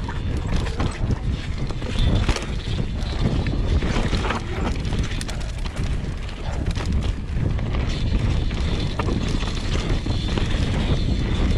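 Mountain bike descending dirt singletrack: wind buffeting the microphone and the tyres rumbling over the dirt, with frequent small knocks and rattles from the bike as it rides over roots and rough ground.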